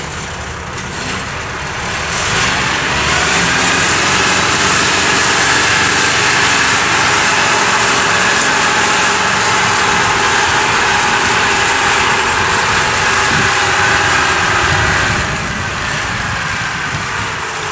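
Small tracked farm carrier's engine running as it drives past, with a steady whine over the engine noise; it grows louder about two seconds in and drops back near the end.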